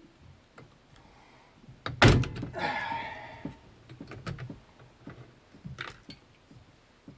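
One loud thunk about two seconds in, with a short rattle after it, then scattered light clicks and taps of parts being handled.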